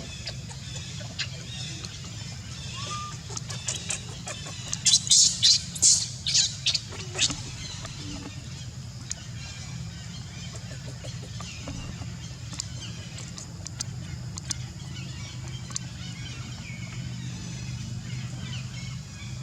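Baby monkey crying: a run of about six loud, shrill, high-pitched squeals in quick succession about five seconds in, then faint scattered squeaks over a steady low hum.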